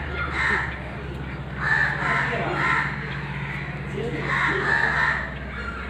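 Crows cawing in about four bursts of harsh calls over a steady low hum.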